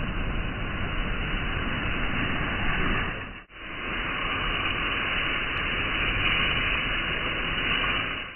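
Car-wash spray: a foam sprayer and then a pressure-washer jet of water hitting a car's body, a steady rushing hiss. It breaks off for a moment about three and a half seconds in, then carries on.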